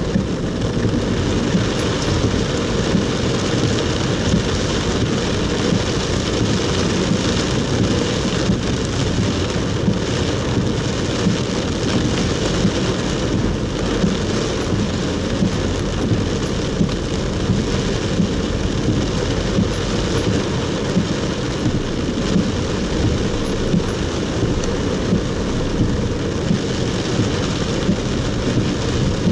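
Heavy rain beating on a moving car's roof and windscreen over steady low road and engine noise, heard from inside the car.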